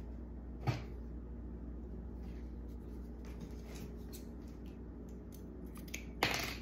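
Light clicks and taps of small items being handled on an ironing board, over a steady low hum, with a louder knock near the end.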